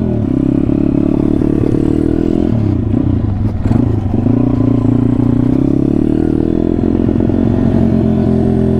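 SSR 140cc pit bike's single-cylinder four-stroke engine running under way. The revs drop about three seconds in, pick up again, then hold steady.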